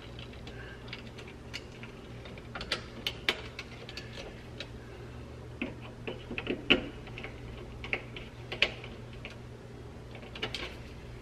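Scattered light clicks and taps of a small screwdriver and fingers working a wire into a plastic screw-terminal block on a thermostat base plate and tightening the terminal screw, over a low steady hum.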